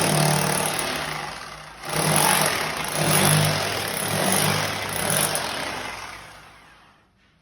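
A motor runs loud in two long bursts with a steady hum and a hiss. The second burst winds down and fades out near the end.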